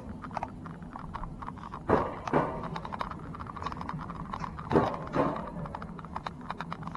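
Alpine coaster sled climbing its steel rail track. Its running gear gives a double clack about every three seconds, with lighter ticking in between, over a low steady hum.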